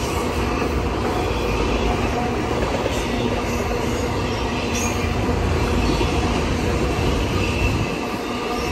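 Freight train of enclosed autorack cars rolling past: a steady rumble and rattle of steel wheels on the rails, with a few brief high wheel squeals.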